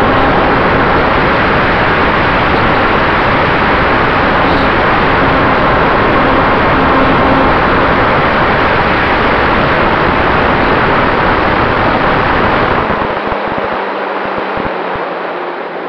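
Radio-controlled Cessna 188 model airplane in flight, heard from its onboard camera: a loud, steady rush of wind and propeller noise. About thirteen seconds in the rush eases and a low steady hum comes through.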